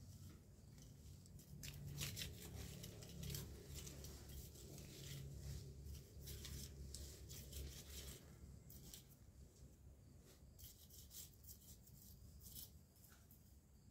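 Faint, crisp rustling and tearing of grass and weeds being pulled up by hand: a run of short crackles and snaps. A low rumble sits under the first half and fades out about eight seconds in.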